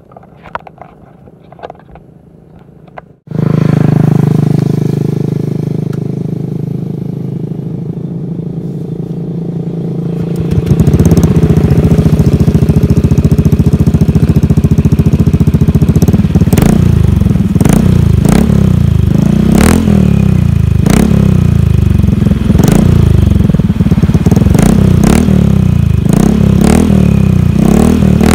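Scooter engine starting about three seconds in and running loud through its cut-down stock exhaust pipe ('chicken pipe'). It idles, rises to a higher speed about ten seconds in, and from about sixteen seconds the throttle is blipped over and over, each rev rising and falling.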